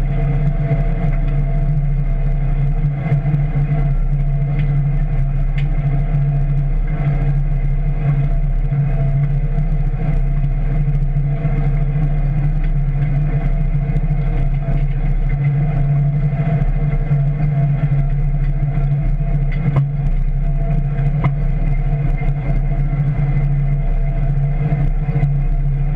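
Tractor towing a row-crop lister bar through a field, with a steady, unchanging low drone from the engine and rumble from the implement.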